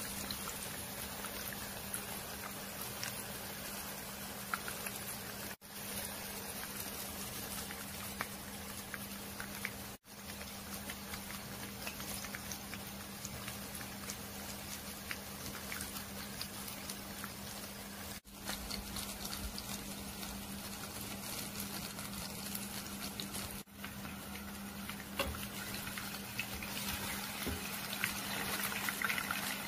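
Masala-coated chicken pieces sizzling and crackling as they fry in hot oil in a non-stick pan, over a steady low hum. The sizzle breaks off briefly a few times and grows louder near the end as a slotted spoon works the chicken.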